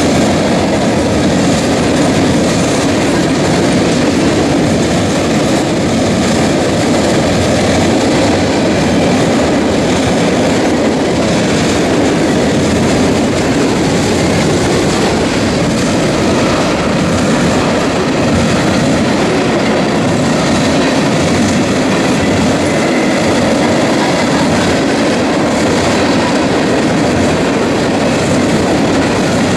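Freight train cars rolling past: a steady, loud rumble of steel wheels on the rails.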